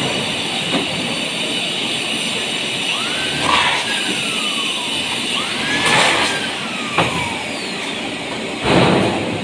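Light-gauge steel furring channels being worked by hand, knocking and clanking several times. Twice there is a metallic ring that swoops up and then slides down, with a heavier thump near the end, all over a steady hum.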